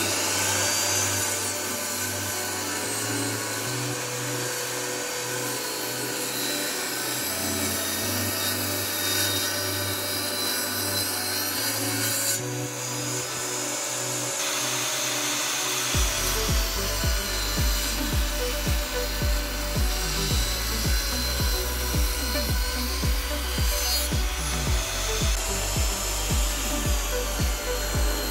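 Wood being worked by hand with a scraping, rubbing tool, under background music. The music has a bass line, and a steady beat joins it about sixteen seconds in.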